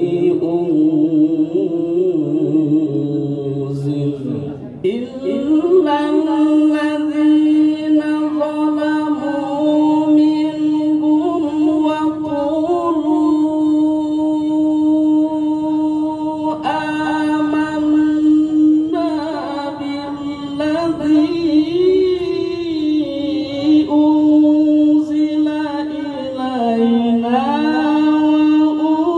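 A man reciting the Quran in the melodic tilawah style, unaccompanied. After a short break about five seconds in, he holds one note for more than ten seconds, then moves into wavering, ornamented phrases.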